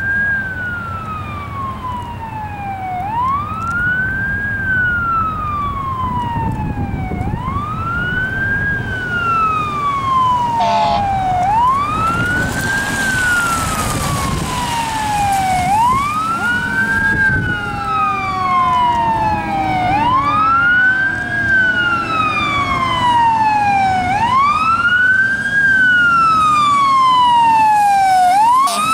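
E-One fire ladder truck's siren wailing, sweeping up quickly and falling slowly about once every four seconds, growing louder as the truck approaches. A low engine rumble runs underneath, and a second, faster siren tone joins in over the second half.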